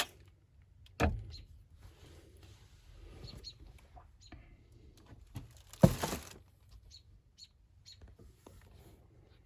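Scattered knocks and clicks of handling, a louder knock about a second in and another near six seconds, with faint short chirps in between.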